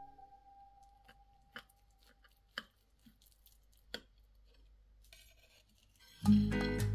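Knife cutting into a crisp-fried grated-potato cake on a china plate: a few short crunches and clicks, three of them clearer, as the blade presses through the crust and meets the plate. Loud music comes in near the end.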